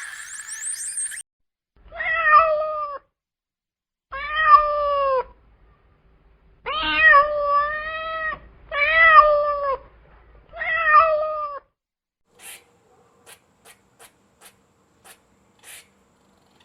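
Domestic cat meowing five times, each meow about a second long with a pitch that rises and falls, followed by several faint short clicks.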